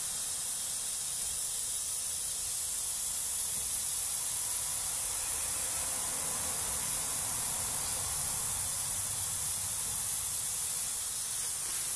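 Steady hiss, strongest in the high pitches, with no other distinct sound.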